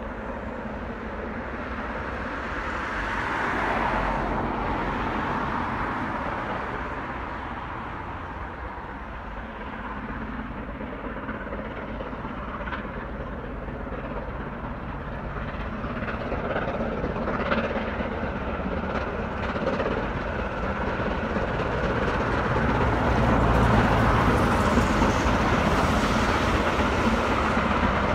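LMS Black 5 steam locomotive 45212 working a train up a bank in the distance. Its steady working sound grows louder in the second half as it draws nearer.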